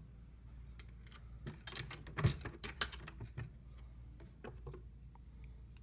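Sharp metallic clicks and clinks from a reloading press and a brass .223 cartridge being handled while the bullet seating depth is set. A quick cluster of clicks runs from about a second in to past three seconds, with a few more near the end.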